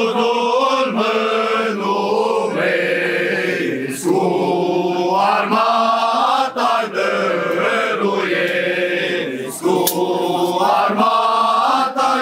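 A group of carolers chanting a slow Romanian Christmas carol together, drawing out each note for a second or two with short breaks between phrases.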